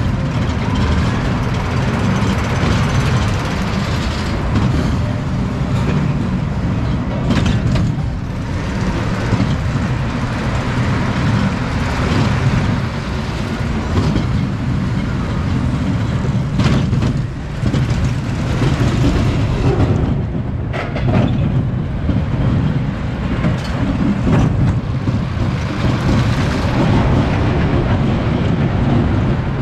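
Reverchon spinning coaster car rolling along its steel track: a steady loud rumble of the wheels, with a few sharp clacks along the way.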